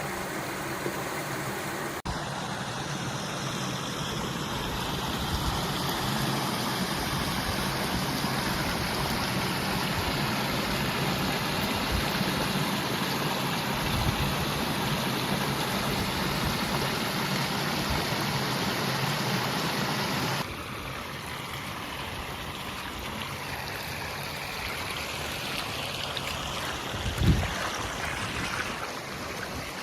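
Flowing water of a rocky waterfall stream, a steady rushing noise; it drops a little in level about two-thirds through, and a brief low thump comes near the end.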